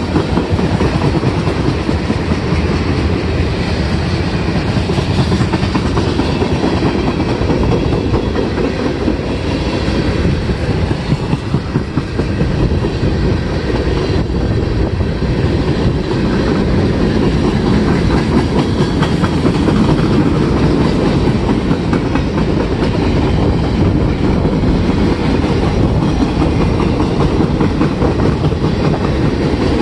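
Freight train of tank cars and boxcars rolling past close by: a steady rumble of steel wheels on rail, with rapid clicking as the wheels cross the rail joints.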